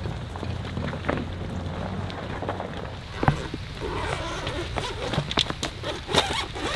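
A Jeep Gladiator's engine running low and steady as it tows a log over river gravel. About four seconds in this gives way to a run of crunches and clicks: footsteps on river stones and handling of the rooftop tent cover.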